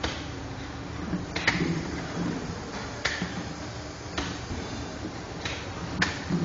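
Gold Star Industries six-colour dry offset pail printing machine running with a steady hum and sharp mechanical clacks about every second or so as it cycles through the plastic pails.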